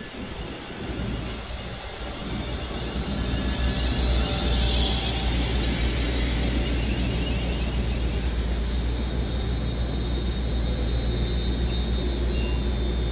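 Class 350 Desiro electric multiple unit pulling into the platform and slowing to a stop: a heavy rumble building up, with a whine from its motors and brakes as it slows, then a steady hum and high whine as it stands.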